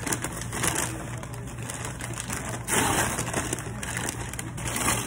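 Brown paper fast-food bag rustling and crinkling as it is opened and rummaged through by hand, with a louder burst of crumpling about three seconds in.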